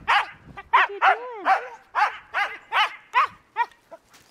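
Husky barking excitedly in short high-pitched barks, about two or three a second, with one longer rising-and-falling howl-like call about a second in.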